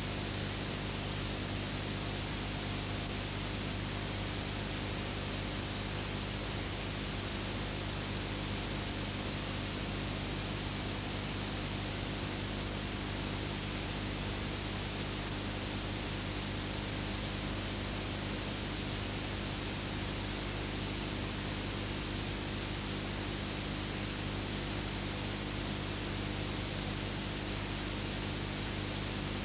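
Steady, unchanging hiss with a low hum underneath: the noise floor of a silent old film transfer. No sound of the steam train is heard.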